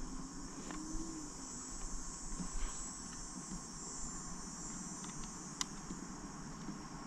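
Steady high-pitched chorus of insects, with a few light clicks and taps from hands working on parts, the sharpest click about five and a half seconds in.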